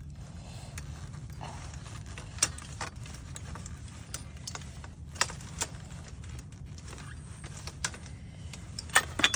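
Scattered light clicks and knocks, about eight in all, from parts of a sun umbrella's pole and tilt mechanism being handled; the loudest is a pair just after 9 seconds. A steady low hum lies underneath.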